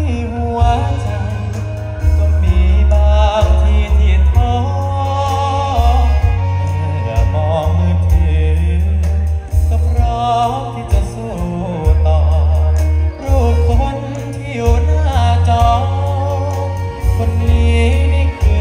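Live band music played loud over a PA system, with a male singer's voice over a heavy, steady bass.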